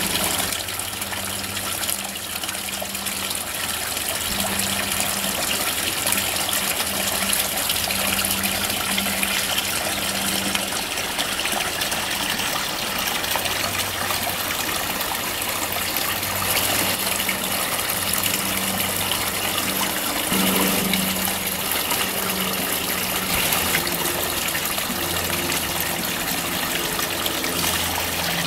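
Water pouring steadily from a terracotta urn's spout and splashing into a garden fish pond, the pond pump's return flow.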